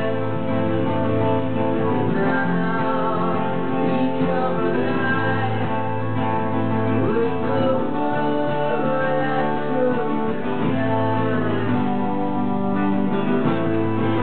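Live acoustic music: two acoustic guitars played together, with a man singing over them.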